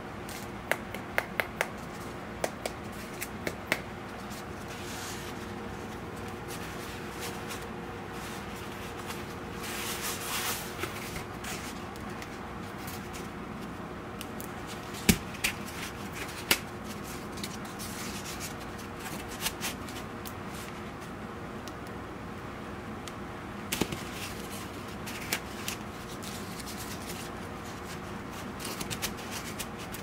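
Hands handling high-density foam: the cut-out plug from a kneeling pad's handle slot is squeezed and flexed, then pushed back into the slot. The result is scattered light clicks and taps with a brief rustle around ten seconds in.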